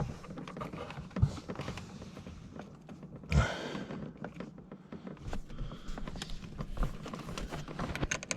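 Hand tools and hardware being handled during a wiring job: scattered small clicks and knocks, with a sharp knock about a second in and a louder clunk with a short rustle about three and a half seconds in.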